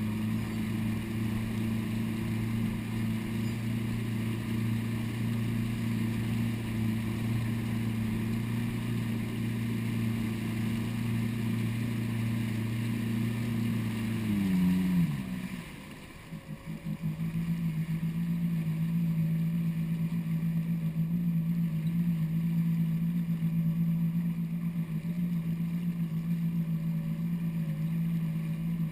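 Personal watercraft (jet ski) engine running steadily under way, with water spray rushing off the hull. About halfway through, the engine note glides down and briefly drops in level, then holds steady again.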